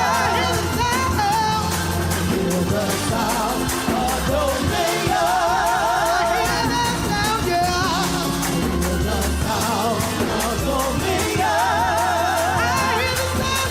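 Gospel praise music: a voice singing long wavering notes in repeated phrases over a steady bass line and drums.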